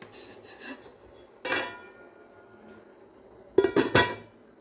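Enamel lid clinking on the rim of an enamel stockpot: one ringing clink about a second and a half in, then a quick clatter of several knocks near the end as the lid is set in place.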